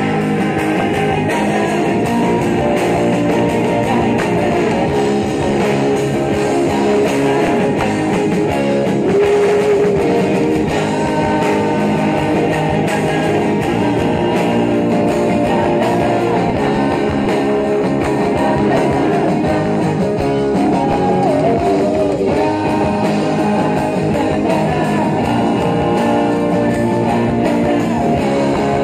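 A live pop-rock band playing through a PA: electric and acoustic guitars, drums and keyboards, with a male lead singer.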